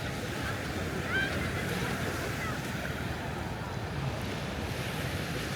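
Ocean surf washing steadily onto a sandy beach, with faint, indistinct voices of beachgoers in the background.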